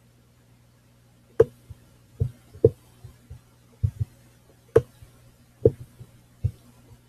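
Clicks of a computer pointing device while text is being selected: about eight sharp, irregular clicks over a low steady hum.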